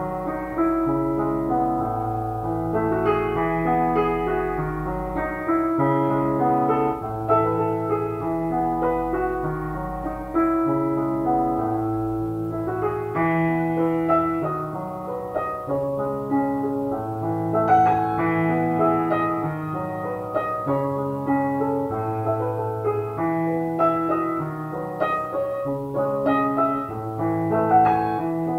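Slow, gentle piano music: held notes and chords over a bass line that steps from note to note.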